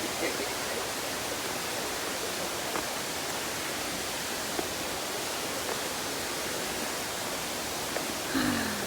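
Steady rushing of a waterfall, heard as an even hiss from a short way off, with a few faint taps and a brief voice with a falling pitch near the end.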